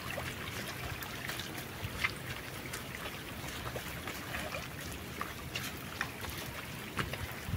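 Rainwater running and trickling over a rocky dirt track, a steady wash of water, with a few soft splashing footsteps on the wet stones.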